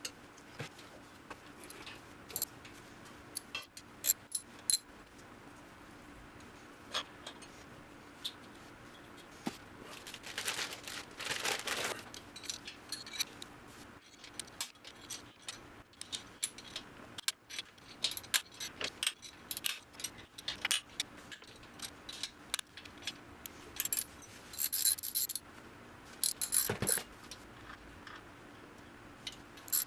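Metal hand tools and engine parts clinking and rattling in short, irregular clicks, with a longer scraping stretch about ten seconds in and another around twenty-five seconds in, over a faint steady hum.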